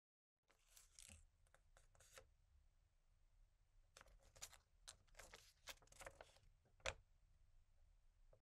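Faint paper rustling and crinkling as a folded note is handled, in short scattered crackles, the loudest one a sharp crackle about seven seconds in.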